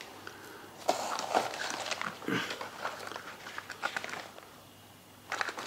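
Hands handling fishing tackle and its packaging on a workbench: irregular rustling and crinkling with small clicks, in a few short bursts.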